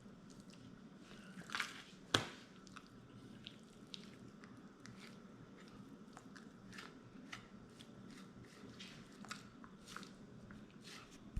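Sharp knife working under the silver skin of a raw venison roast: soft wet squishing and scraping of meat, with scattered small clicks and one sharper click about two seconds in.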